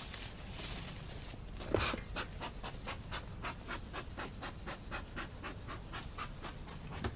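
Fast, even panting, about four breaths a second, starting about a second and a half in, with a single thump just before two seconds in.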